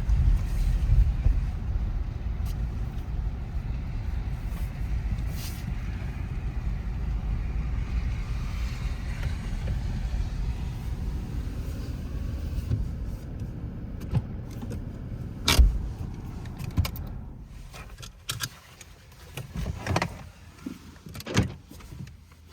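Steady low rumble of a car, which drops away about thirteen seconds in, followed by scattered clicks and knocks.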